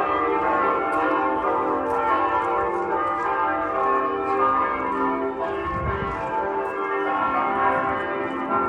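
Church bells of Mission San José pealing, several bells ringing at once with their tones overlapping and hanging on.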